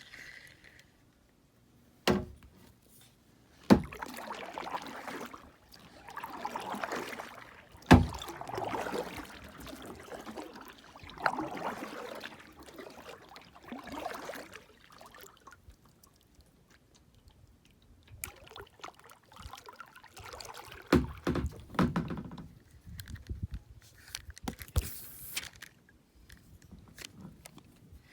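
Water sloshing and swishing around a kayak in uneven surges, with several sharp knocks, the loudest about 8 seconds in and a cluster near the end.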